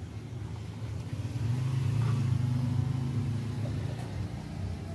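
A low engine hum that swells for a couple of seconds and then fades, like a motor vehicle going past.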